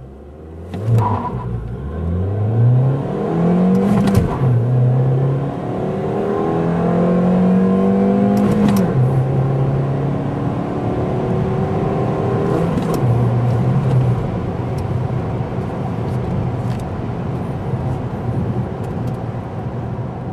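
2011 Ford Fiesta's 1.6-litre four-cylinder engine accelerating hard, heard from inside the cabin: a rising drone as the revs climb through the gears, breaking for manual upshifts about four and nine seconds in. The engine then settles to a steady note under road and tyre noise as the car holds about 60 mph, with another shift about thirteen seconds in.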